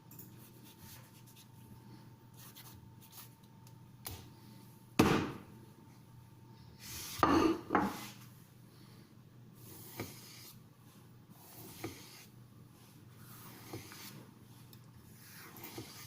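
A steel kitchen knife being handled with intermittent rubbing and scraping sounds. There is a sharp knock about five seconds in, a louder scraping pass a couple of seconds later, and faint light ticks after that.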